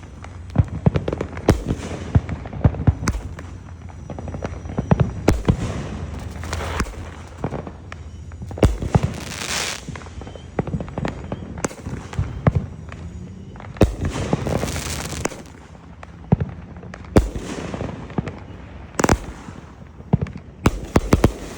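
Derby Blast firework going off: a rapid, irregular string of sharp bangs and cracks, with a few short hissing stretches between volleys.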